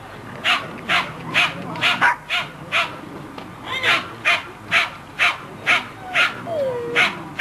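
Plummer terrier barking in a steady run of short, sharp, high yaps, about two a second, with a brief falling whine near the end.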